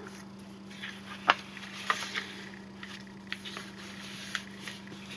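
Paper being handled and pressed down onto a journal page: a few soft taps and rustles, the sharpest about a second in, over a steady low hum.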